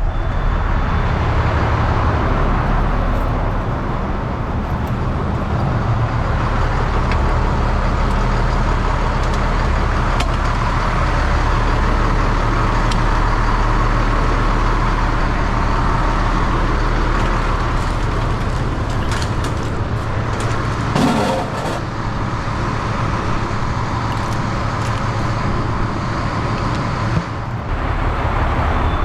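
Heavy truck engine running steadily, heard from in or near the cab while the truck is moved around, with a short wavering pitched sound about two-thirds of the way through.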